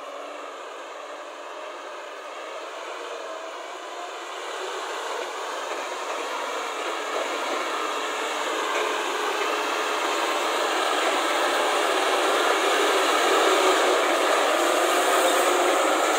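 Diesel engine of a loaded Tata tipper truck running as the truck drives up and passes close by, growing steadily louder and peaking near the end.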